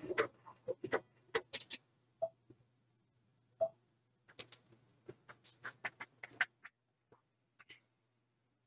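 Scattered light clicks and taps in two clusters, one at the start and one around the middle, with two short low blips between them and a faint steady hum underneath.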